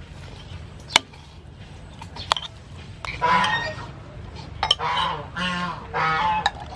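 Geese honking: four calls, each about half a second long, in the second half. Before them come two sharp clicks, about a second apart, of a metal spoon against a clay pot.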